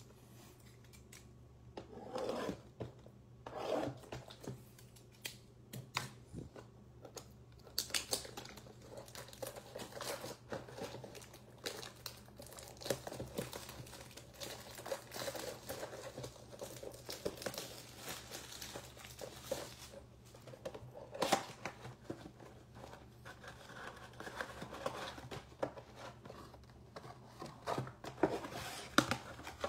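Plastic wrap crinkling and tearing as a baseball-card box is unwrapped, then the cardboard box being pulled open, with irregular rustles and sharp crackles.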